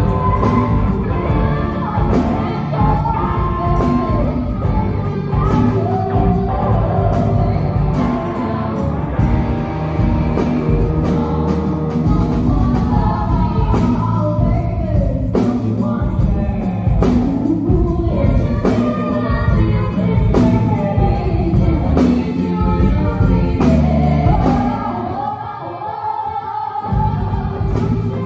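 Live rock band playing a song with several voices singing over drums, guitar and keyboard. Near the end the drums and bass drop out for about two seconds while the voices carry on, then the full band comes back in.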